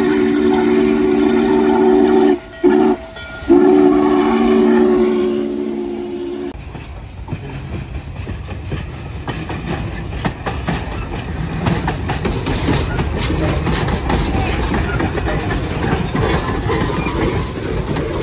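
Norfolk & Western 611's steam whistle sounding a long blast, a short one and a final long one, ending a grade-crossing signal. Then the train rolls by, rumbling, with its wheels clicking rapidly over the rail joints.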